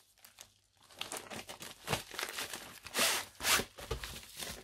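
Plastic packaging crinkling and rustling as a rolled diamond-painting canvas is slid out of its bag and handled, with louder crackles about two, three and three and a half seconds in.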